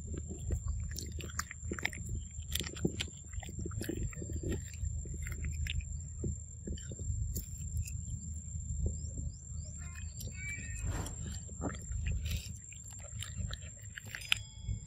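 A macaque chewing and biting into a cob of corn close to the microphone: a continual run of short wet clicks and crunches over a steady low rumble.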